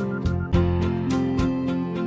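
Background music: plucked string notes on a steady, even beat.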